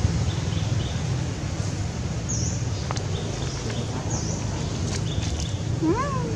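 Outdoor ambience: a steady low wind rumble, with a few short, high bird chirps. Near the end comes one brief call that swoops up and then falls.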